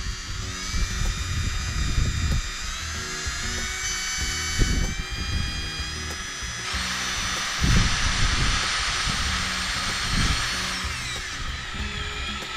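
Cordless drill driving a self-tapping sheet-metal screw into the square steel tube of an IBC tote cage. The motor whine glides up and down in pitch, with a harsher, noisier stretch past the middle that ends a little before the close.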